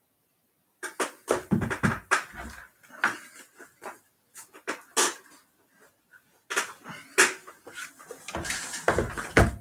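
Irregular knocks, taps and rustles of handling close to the microphone, cutting in suddenly about a second in, with a cluster of heavier thumps near the end.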